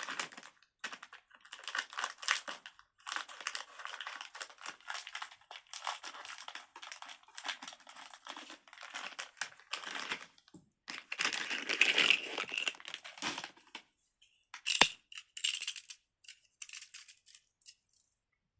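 Plastic packaging crinkling and rustling as it is handled and opened, in irregular stretches, with one sharp click about fifteen seconds in.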